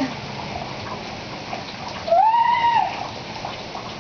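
Steady rain falling and splashing on pavement, with one high-pitched squeal about two seconds in that rises and falls in pitch and lasts under a second.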